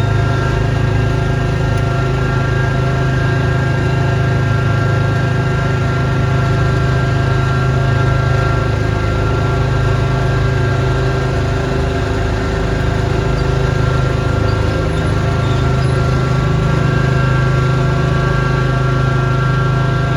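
Small gasoline engine of a snowblowing machine running steadily at a constant speed with a deep, even hum.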